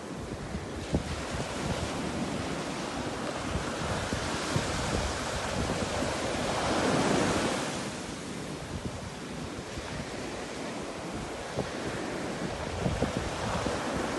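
Wind blowing across the microphone: a steady rushing with irregular low rumbling gusts, swelling briefly about halfway through.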